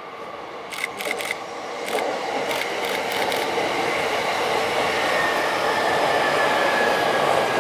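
A JR East E233 series commuter train passing close, its running noise growing steadily louder, with sharp clacks as the wheels cross rail joints about a second in and again a couple of seconds later. A faint, slightly falling electric whine from its Mitsubishi IGBT-VVVF inverter runs under the rumble.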